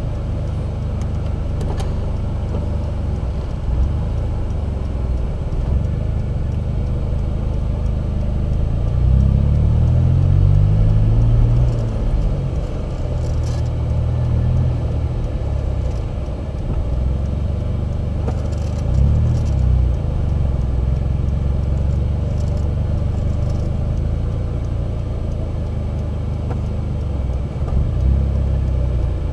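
Car engine running at idle, with its revs rising and falling about nine seconds in and again briefly a little past the middle.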